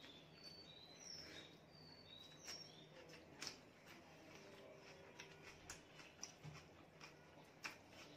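Faint, scattered wet clicks and smacks of fingers mixing water-soaked rice (panta bhat) on a plate and of eating, with a few short high chirps in the first two and a half seconds.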